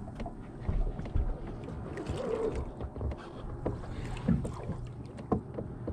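Water lapping against the hull of a bass boat, with scattered short clicks and knocks from gear aboard.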